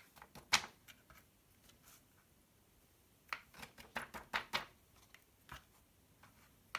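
Light taps and rustles of a vellum sheet and a small wooden spoon against a plastic tub as excess embossing powder is shaken off. One tap comes about half a second in, then a quick run of about six taps between three and five seconds in, and one more a little later.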